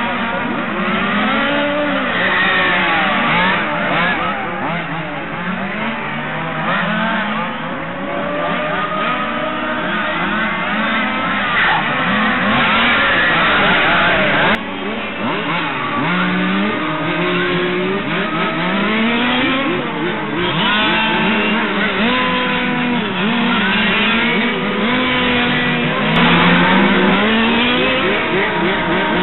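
Several 1/5-scale RC touring cars' small two-stroke petrol engines racing, overlapping whines that rev up and down, the pitch of each rising and falling again and again.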